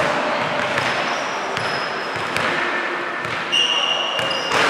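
Basketball game on an indoor court: a ball bouncing in short sharp knocks and sneakers squeaking in high, short tones, the longest squeak about a second long near the end.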